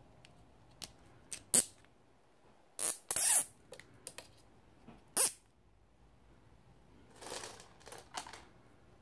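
Nylon (polyamide 66) cable ties being handled: sharp plastic clicks and short rasps. The loudest come about a second and a half in, around three seconds in, and about five seconds in, with softer rustling near the end.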